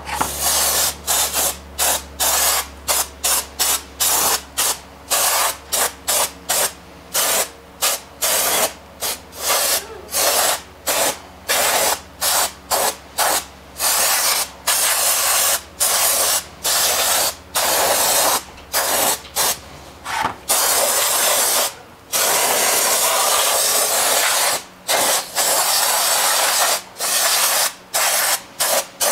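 Aerosol can of brake cleaner spraying in many short bursts, about two a second, onto an exposed rear drum-brake assembly to flush off the brake dust, with one longer unbroken spray about two-thirds through.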